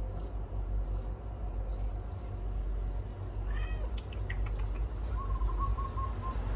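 A cat gives one short meow about three and a half seconds in, over a steady low hum. Near the end comes a quick string of about five short, high calls.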